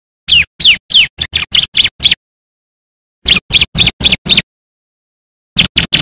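Bar-winged prinia (ciblek) singing: three phrases of sharp, high chirping notes with pauses between them, the first notes sweeping downward in pitch and the later ones coming quicker.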